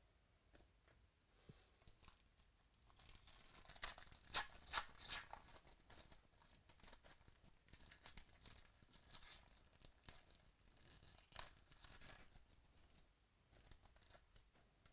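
Foil wrapper of a 2018 Donruss Baseball card pack being torn open and crinkled by hand: a run of crackly rips and rustles, loudest about four to five seconds in and again near twelve seconds, dying away near the end.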